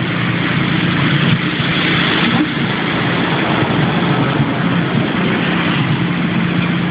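Steady vehicle engine noise with a constant low hum.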